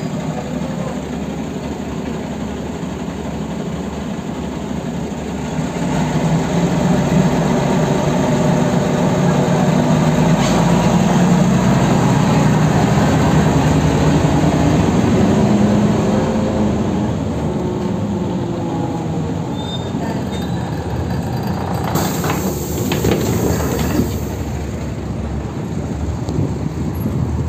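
Cabin noise of a Mercedes-Benz O305 city bus under way: its diesel engine and drivetrain grow louder from about six seconds in as the bus pulls and accelerates, then ease off after about sixteen seconds. A short hiss and a few knocks come about 22 seconds in.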